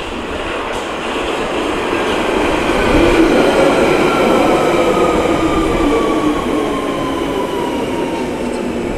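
London Underground 1992 Stock train running into the platform and braking: wheels rumbling on the rails, loudest about three seconds in as the cars pass close by. Over this, the whine of its traction motors falls steadily in pitch as the train slows.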